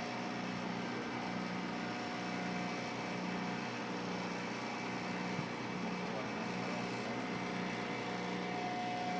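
An engine running steadily, with a constant drone and a low hum that swells and fades roughly once a second.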